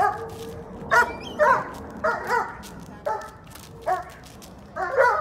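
Young German Shepherd barking repeatedly on the leash, about eight loud barks, several in quick pairs. This is leash reactivity: he is going off at another dog.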